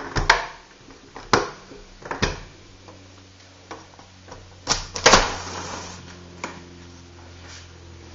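Clicks and knocks of a window latch being unlocked and the sash window being worked open, with a louder, longer rush of noise about five seconds in. A low steady hum runs underneath from about two seconds in.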